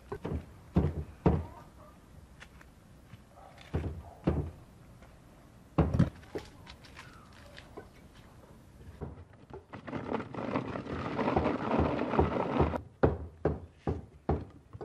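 An onion being peeled and cut by hand with a serrated knife over an enamel pot: crisp crunching and scraping of the blade through the onion, densest from about nine to thirteen seconds, with several sharp knocks as chunks drop into the pot.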